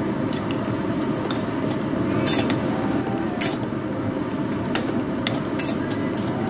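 Metal spoon clinking and scraping against a stainless steel pot while stirring beef chunks cooking in their own juices. Sharp, irregular clinks sound over a steady sizzle.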